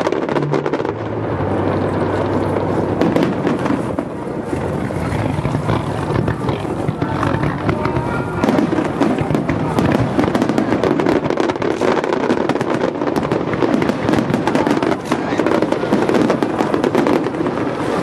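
Aerial fireworks display: many shells bursting in rapid, continuous bangs and crackles, with no pause between volleys.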